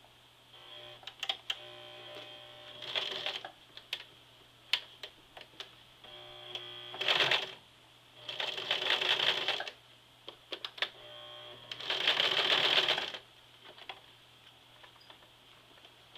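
Free-arm sewing machine stitching through the thick layers of denim below a jeans fly, in several short stop-start runs. The longest and loudest runs come a little past the middle and about twelve seconds in.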